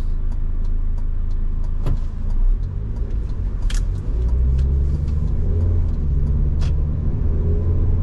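Car engine and road noise heard from inside the cabin while driving, a heavy low rumble. From about three seconds in the engine note rises steadily as the car accelerates, with a few short clicks over it.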